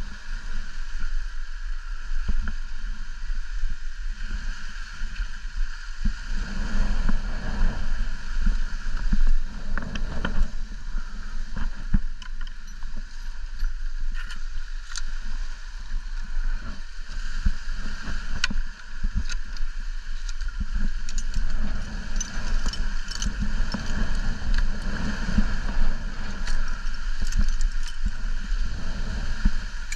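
Wind buffeting the microphone, a steady rumbling noise that swells and eases every few seconds, with scattered light clicks and rustles.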